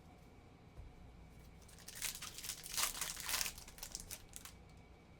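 Foil wrapper of a Topps baseball card pack crinkling and tearing as it is opened, in a burst of crackles from about two seconds in until past four seconds.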